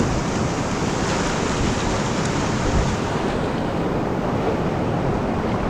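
Whitewater rapid at high spring flow (about 850 cfs): a loud, steady rush of turbulent water, with wind and water buffeting the microphone. The hiss dulls a little about halfway through.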